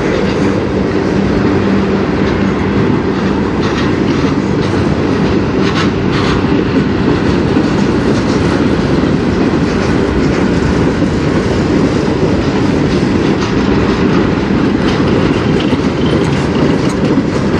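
Freight cars of a long manifest train rolling past close by, a loud, steady rumble of steel wheels on rail with a clickety-clack over the rail joints.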